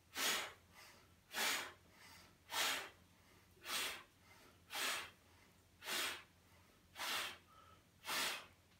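A man breathing out sharply and forcefully in time with a Pilates single leg stretch, one exhale each time a knee is pulled in as the legs switch: eight exhales at about one a second, with faint short inhales between.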